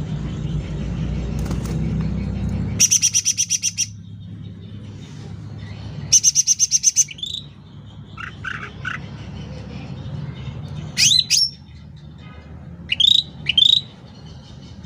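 Black-headed bulbul (cucak ranting) calling. It gives two loud, quick rattling trills of about nine notes each, then a few lower notes and sharp rising whistled calls near the end. A low rumble underlies the first three seconds.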